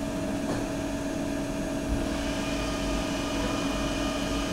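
Traub TNA480 CNC lathe running with a steady hum while its tailstock centre travels back from the workpiece; a higher hiss joins about two seconds in.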